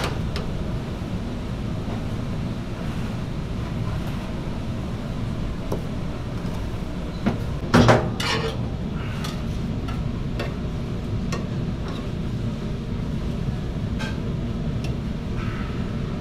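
Dough being pulled and cut out of a stainless-steel dough mixer: scattered knocks and scrapes of hands and a knife against the metal over a steady low machine hum, with one loud metallic clank and brief ringing about eight seconds in.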